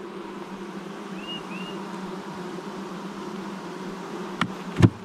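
Honeybees from an open hive humming steadily, a low even drone. Two sharp knocks near the end, the second the loudest.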